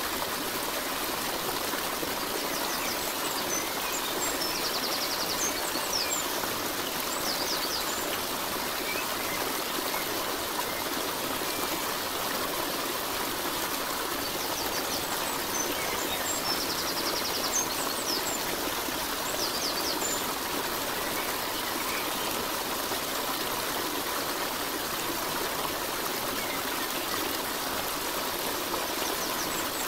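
Steady rushing water, like a running stream, with brief high chirps and a short trill that come back in the same pattern about every fifteen seconds, as in a looped nature recording.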